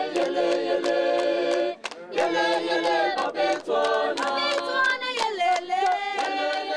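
A group of voices singing unaccompanied in harmony, with hand clapping, and a short break in the singing about two seconds in.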